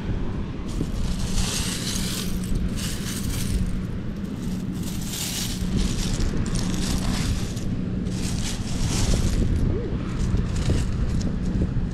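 Loose seashells clattering and rattling as a hand rakes and sifts through a beach shell pile, in about six bursts a second or two apart. Wind rumbles on the microphone underneath.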